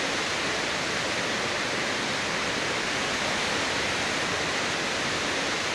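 Muddy floodwater from an overflowing stream rushing in a fast torrent over grass and along a street: a steady, even rushing noise.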